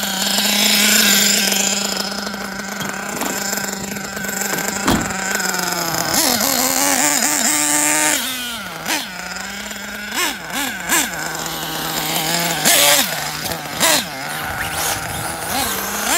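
Nitro glow engine of a Kyosho Inferno NEO ST 3.0 RC truggy running, holding a steady note for stretches between quick throttle blips that rise and fall in pitch.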